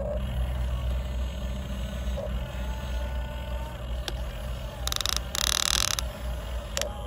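Huina RC excavator's electric motors whining steadily as the boom lowers and the bucket reaches into the dirt. Two short bursts of scraping noise come about five seconds in, as the bucket digs into the dry soil.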